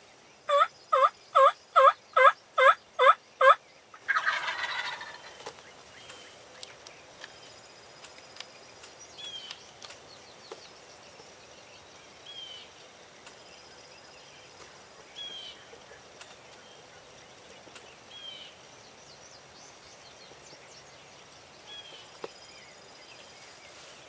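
Eight quick, evenly spaced turkey yelps, loud and close, then a wild turkey gobbler answers with one gobble. After that only faint short bird chirps come every few seconds.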